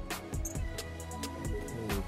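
Background music with a steady beat: held instrumental notes over regular drum hits about twice a second.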